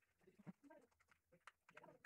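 Near silence, with a few faint clicks and light rustling of 3D-printed plastic parts being handled.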